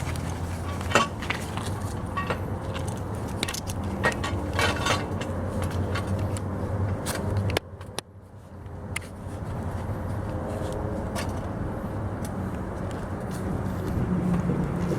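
A steady low engine hum with scattered short clicks and scrapes; the hum drops out suddenly about halfway through.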